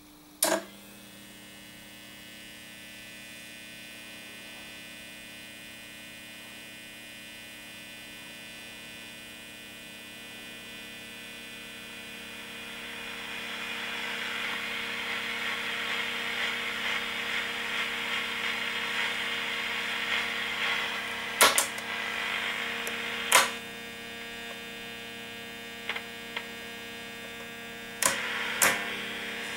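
Becker Monaco car radio switched on with a click, then a steady hum with untuned static hiss swelling in over several seconds. Several sharp clicks of the chrome push buttons follow near the end, and the static level changes between them.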